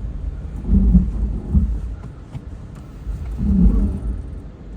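Four-wheel-drive vehicle's engine and drivetrain working in low range while backing up through deep snow: a low rumble that swells twice, about a second in and again near the end.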